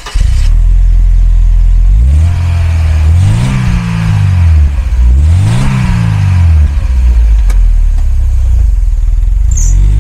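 Mercedes-Benz 190E 2.3's four-cylinder petrol engine idling, then revved twice, each rev rising and falling over about a second and a half, before settling back to idle. Near the end the car pulls away.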